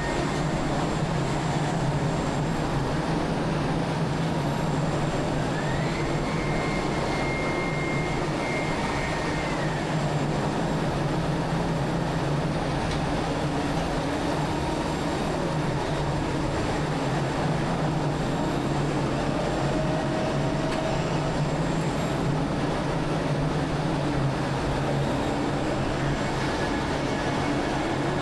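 Ship crane machinery running with a steady, heavy drone. A faint high whine comes in about six seconds in and falls away near ten seconds.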